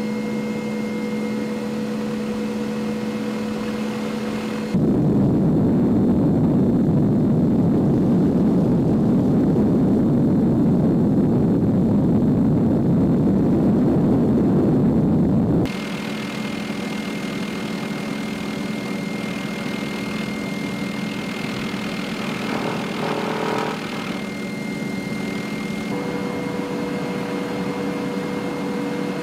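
MD 530F Cayuse Warrior helicopter in flight: its single turboshaft engine and rotors make a steady drone with a constant whine. From about 5 to 16 seconds in, a louder rushing noise covers the engine tones.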